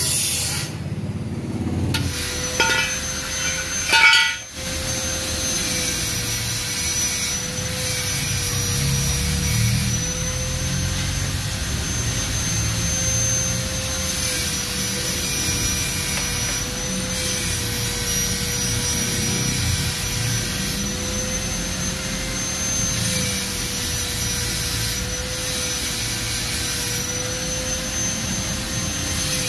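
A stick-welding arc stops just after the start. A running welding machine then gives off a steady electrical whine that wavers slightly, with a faint high whistle above it. There is a single sharp knock about four seconds in.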